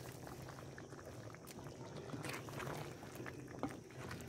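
Meat curry cooking in ghee in a clay pot, a faint bubbling and crackling with scattered small clicks, and a wooden spoon stirring through it near the end.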